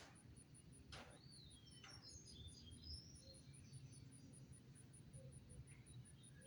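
Faint outdoor birdsong: scattered short chirps and a whistle that rises and falls in the first few seconds, more chirps near the end, over a steady, rapid, very high pulsing and a low rumble.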